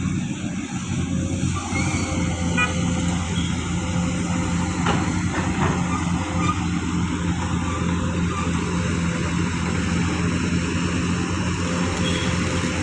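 A heavy vehicle's engine running steadily with a continuous low hum.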